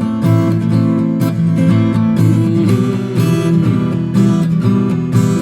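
Acoustic guitar strumming chords with band accompaniment in a gap between the sung lines of a song.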